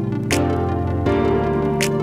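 Background music: sustained synthesizer-like chords that change twice, with a sharp high percussion hit about every second and a half.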